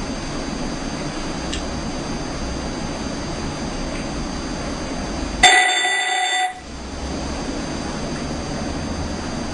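Moshi talking alarm clock's alarm going off: a ringing electronic tone of several steady pitches lasting about a second, coming about five and a half seconds in and starting again at the very end, over a steady hiss.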